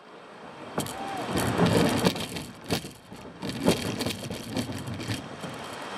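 Plastic kayak hull scraping and knocking over rock, a run of irregular bumps and grinding scrapes over rushing water, with one short squeak about a second in.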